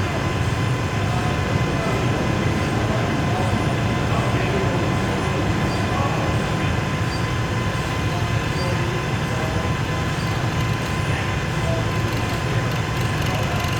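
Lathe running steadily: a constant low drone from its motor and drive, with a thin steady whine on top.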